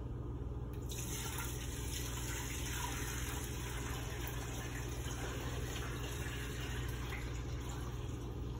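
Wort poured in a steady stream from a stainless steel pot into another pot, starting about a second in.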